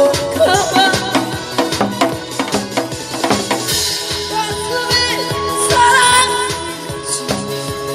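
Korean trot song on an amplified backing track with a steady drum beat, a woman singing live into the microphone over it, and hand strokes on a janggu hourglass drum at the start.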